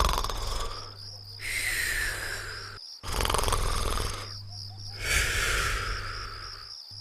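Cartoon snoring sound effect, twice over in a slow, even rhythm. Each breath is a rasping snore on the in-breath followed by a falling whistle on the out-breath.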